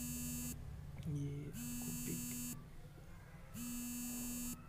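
A buzzing tone, each buzz about a second long, repeating every two seconds, heard three times.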